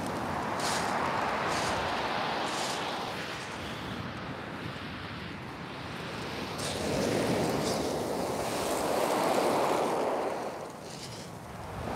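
Sea surf breaking on a shingle beach and washing back over the stones, swelling in two big surges, about a second in and again between about seven and ten seconds, then easing near the end.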